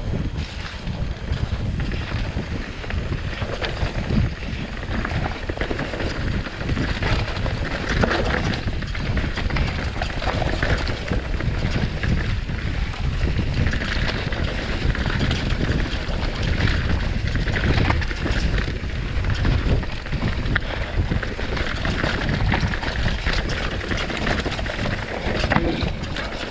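Mountain bike riding fast down a dry dirt trail: wind buffeting the microphone over tyre noise on dirt and leaves, with a steady run of clicks and knocks as the bike rattles over bumps.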